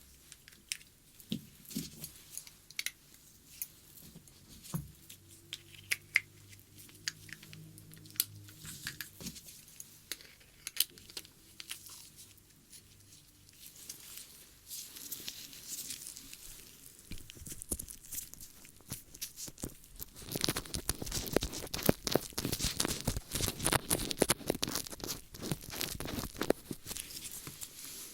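ASMR ear-cleaning sounds close to the microphone: scratching, crinkling and clicking, sparse at first, then dense and rapid for the last eight seconds or so.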